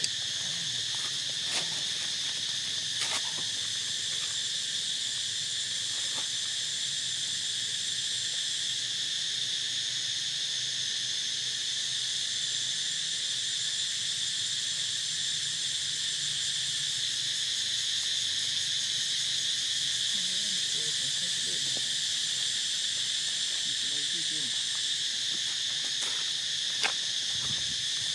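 Steady high-pitched insect chorus, unbroken throughout, with a few short clicks and taps, the sharpest near the end.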